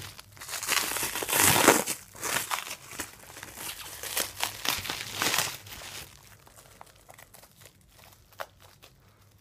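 Thin plastic cling wrap being crinkled and pulled apart by hand, in loud rustling bursts for about the first six seconds, then only faint scattered crackles.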